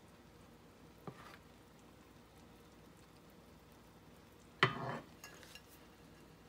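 Faint, steady sizzle from food in a cast iron skillet on the stove. There is a small sharp knock about a second in, and a louder short sound a little past halfway, followed by a few light ticks.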